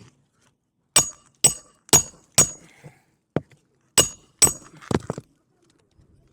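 Hammer driving roofing nails into a new asphalt shingle. Two runs of about four sharp, ringing strikes about half a second apart, with a lighter tap between them.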